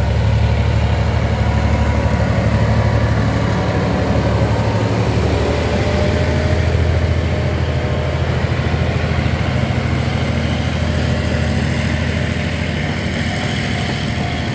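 Diesel locomotive passing close by with its engine running, a steady low hum, followed by a freight train of flatcars rolling over the rails. The sound eases slightly about halfway through.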